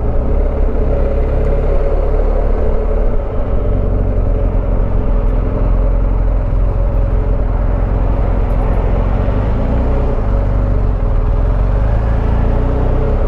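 BMW R1250GS Rallye's boxer-twin engine running steadily at low speed, a continuous deep drone.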